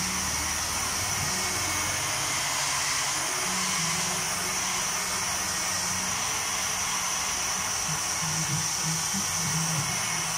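Handheld hair dryer blowing steadily, drying freshly printed water-based white underbase ink on umbrella fabric between colour passes.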